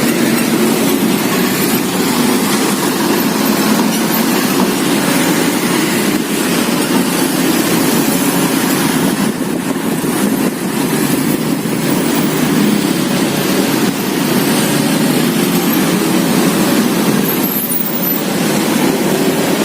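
Loud, steady rumble and noise of passing vehicles, dipping briefly twice.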